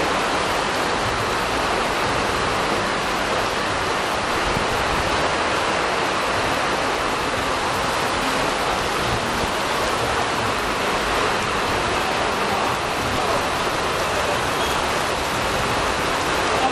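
Heavy downpour: rain pouring onto wet paving and running off roof edges, a dense, steady hiss that holds at one level throughout.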